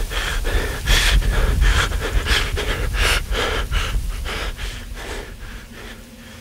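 A man panting hard and out of breath, with quick breaths about two or three a second that grow gradually quieter.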